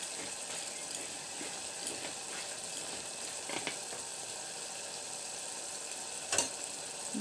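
Taro and lentil curry bubbling in a metal kadai while a ladle mashes and stirs it, with a few light knocks and one sharp knock of the ladle against the pan about six seconds in.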